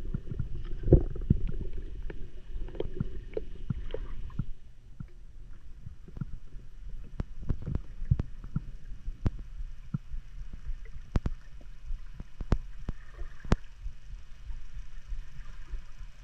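Underwater sound heard through an action-camera housing: a muffled low rumble of water and movement, heavier with thumps for the first four seconds or so, then quieter, with scattered sharp clicks.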